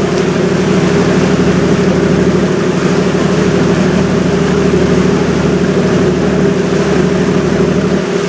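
River cruise ship's engine running steadily while underway, a hum of several low tones over a steady hiss.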